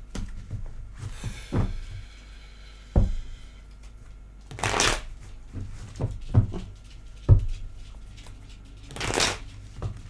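Tarot cards being shuffled by hand, with two longer shuffling rushes about five and nine seconds in, and short soft knocks of cards against the table in between.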